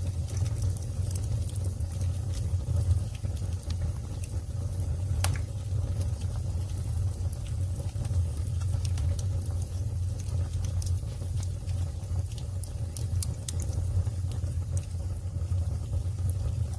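Wood fire burning: scattered sharp crackles and pops from the burning logs over a steady low rumble, with one louder pop about five seconds in.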